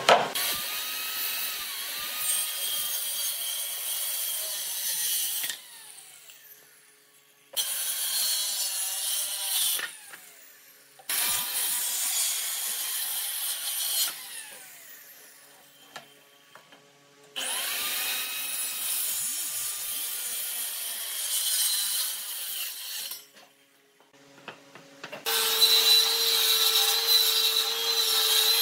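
Handheld Dekton circular saw cutting wooden boards in four separate passes: each time the motor whines up to speed, runs through the cut, and winds down with a falling pitch when released. Near the end a table saw runs steadily as a board is fed through it.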